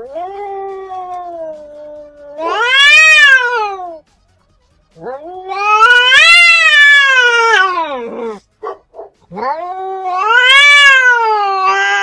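Black-and-white domestic cat yowling in three long drawn-out calls. Each wavers low, then swells up in pitch and slides back down. Short silences separate the calls, and the middle one is the loudest.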